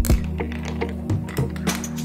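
Background music with steady sustained tones, over irregular hard plastic clicks and knocks from large marbles rolling and dropping through a Gravitrax Junior marble run.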